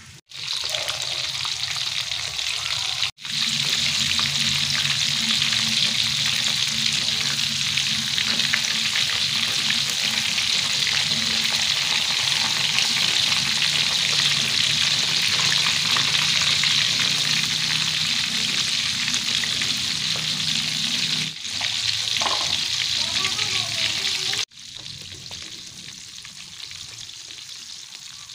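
Breaded shrimp deep-frying in hot oil in a wok: a loud, steady sizzle with a low hum under it, as the shrimp turn crisp and golden brown. The sizzle cuts out briefly twice, and near the end it drops to a quieter bubbling.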